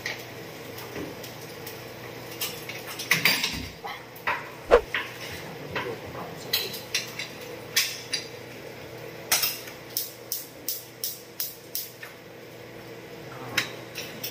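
Metal knocks and clatter from handling an opened gas range, then the range's electric spark igniter ticking in a steady run of about three clicks a second while a burner knob is held turned.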